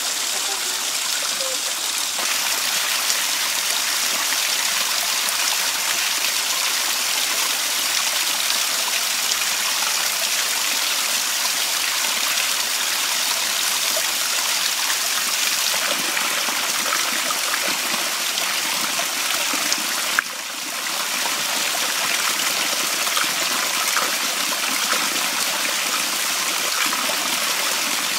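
Small artificial waterfall in an aviary, water trickling and splashing steadily over rocks.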